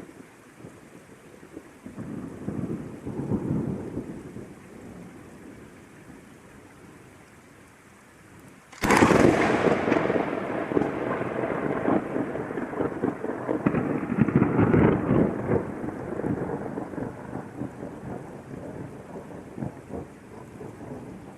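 Steady rain with thunder: a low rumble swells and fades in the first few seconds, then a sudden close thunderclap about nine seconds in cracks sharply and rolls on as long rumbling that surges again and slowly dies away.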